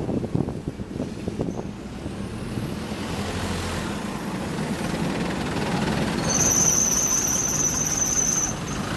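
Optare Solo single-deck bus running, with engine and road noise. About six seconds in, a steady high-pitched squeal comes in and holds for about two seconds.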